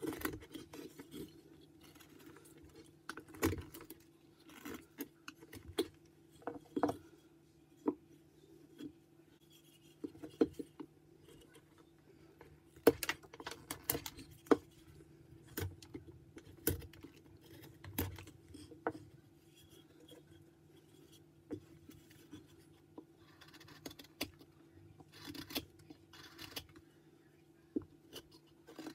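Carving knife slicing and paring a white pine carving: irregular short cuts and scrapes, some sharp and louder, with brief pauses between strokes.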